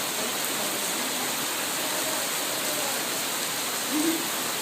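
Steady rain falling, an even hiss of water, with a brief faint sound about four seconds in.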